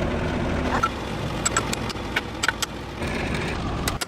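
An engine running with a steady low rumble, with a few sharp metallic clicks in the second half.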